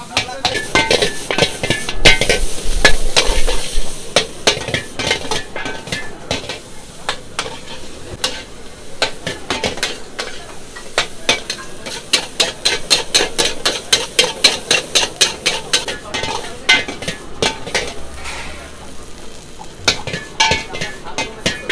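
Metal ladle and spatula clanking and scraping against a wok as noodles are stir-fried, a quick run of strikes several a second over the frying sizzle. It is loudest in the first few seconds.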